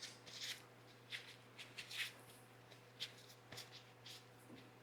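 Faint, scattered rustles and light handling noises of a shop towel being worked by hand to wipe off excess grease, over a low steady hum.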